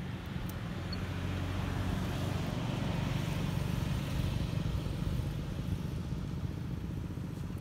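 A motor vehicle engine running steadily, getting a little louder midway and easing off again.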